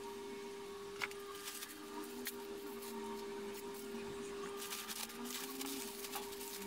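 Clear plastic garment bags crinkling and rustling as hands handle them, densest and loudest in the second half, after a couple of light clicks earlier on. A steady hum runs underneath.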